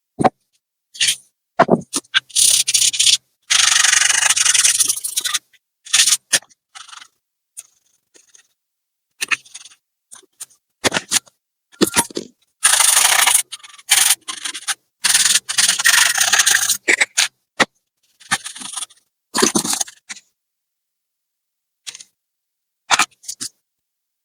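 Repeated rubbing and scraping on laptop parts during cleaning: short bursts of rubbing, each a second or two long, with sharp clicks and knocks of handling between them.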